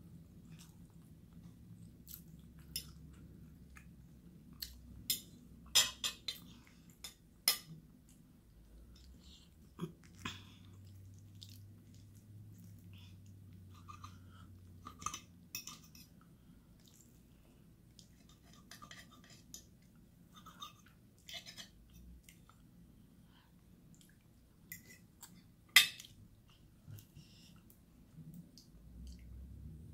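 Quiet chewing and mouth sounds of someone eating enchiladas and rice, with scattered short clicks and scrapes of a metal fork on the plate, the loudest click about 26 seconds in.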